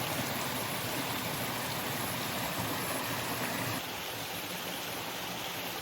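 Small rainforest creek running over a little rocky cascade: a steady rush of water, easing slightly about four seconds in.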